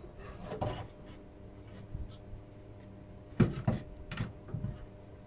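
Aluminium car radiator being worked down into place in the front end, its tanks and brackets rubbing and knocking against the metal: a scrape about half a second in, then a quick run of knocks about three and a half seconds in, the first the loudest.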